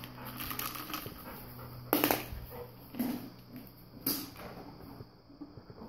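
English cream golden retriever giving three short barks or yips about a second apart, with quieter stretches between them.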